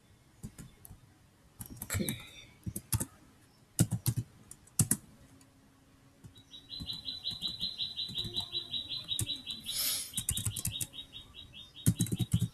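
Keystrokes on a computer keyboard, a scatter of sharp clicks as a command is typed, with another quick run near the end. From about six seconds in, a bird chirps a fast, even series of short high notes, about seven a second, under the typing.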